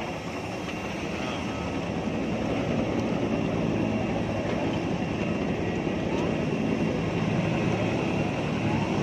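Steady noise of a parked jet airliner running on the apron, a continuous wash of sound with no breaks.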